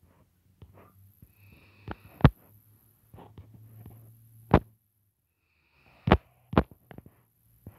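Sharp clicks of fingertip taps on a phone's touchscreen, picked up by the phone's own microphone: a loud one about two seconds in, another past the middle, and a quick pair about six seconds in, with fainter taps between, over a faint low hum.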